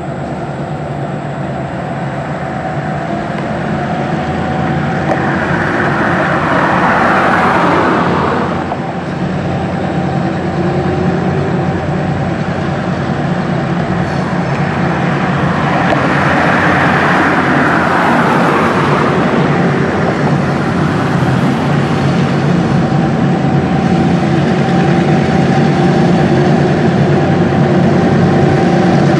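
Diesel locomotives of a heavy freight train running steadily as they approach, the engine hum slowly growing louder. Two cars pass close by on the road with a rush of tyre noise, one about six seconds in and another about sixteen seconds in.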